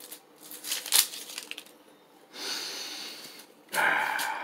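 A sauce bottle's cap clicking as it is twisted open about a second in, followed by two long sniffs at the open bottle.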